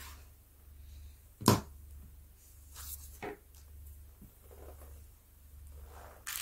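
Small objects handled on a table: one sharp knock about a second and a half in, then a couple of fainter clicks. A low steady hum runs underneath.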